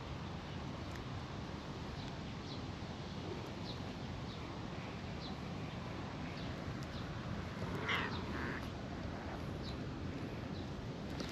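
Steady outdoor background hiss with scattered faint, high bird chirps. About eight seconds in comes one short, louder animal call in two parts.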